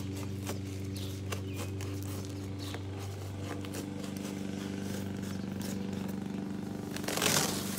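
A cardboard shipping box being cut open down its side, with light scraping clicks and, near the end, a louder rasp of cardboard slicing or tearing. A steady low machine hum runs underneath.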